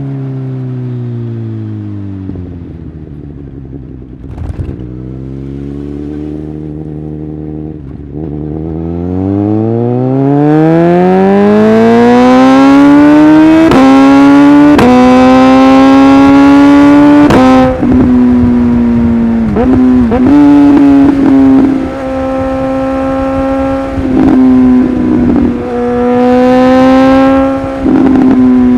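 Suzuki GSX-S1000 inline-four through an aftermarket LeoVince exhaust. The revs fall as the bike slows and stay low for a few seconds, then climb hard in a long pull broken by quick upshifts. It then runs at steady revs, rolling on and off the throttle, with crackles each time the throttle closes.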